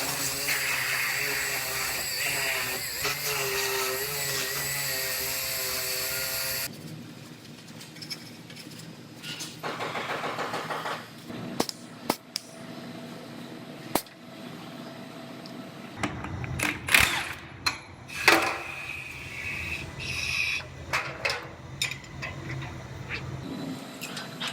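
Body-shop power tool running steadily for about seven seconds, then cut off suddenly, followed by scattered clicks and metal knocks with a short buzzing burst of tool work and a cluster of louder knocks near the middle.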